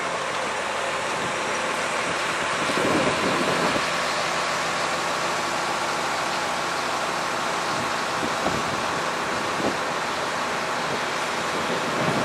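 Large diesel engine of a mobile crane running steadily at idle, with a few low wind rumbles on the microphone.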